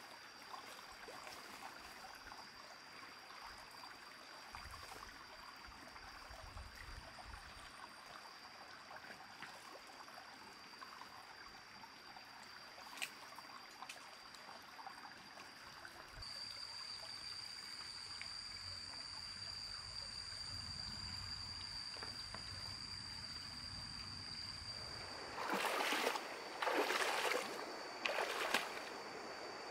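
Water trickling and flowing in a small stream, with a steady high-pitched whine above it that grows louder about halfway through. Near the end come three louder rushes of noise, each lasting about a second.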